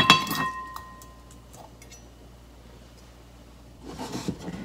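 A metal spatula clinks once against a rice cooker's inner pot as a grilled sea bream is slid onto the rice, the clink ringing briefly. Soft handling noise near the end as the fish is settled by hand.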